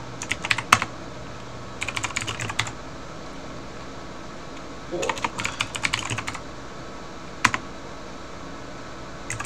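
Computer keyboard typing: three short bursts of keystrokes, then a single key press near the end.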